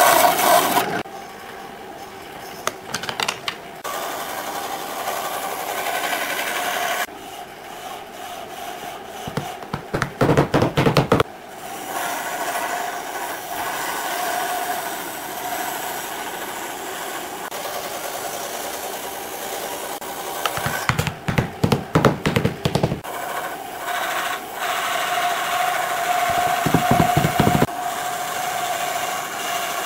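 Tools working wood: long stretches of steady rubbing or scraping, with two bursts of rapid strokes, about ten seconds in and again about twenty-one seconds in.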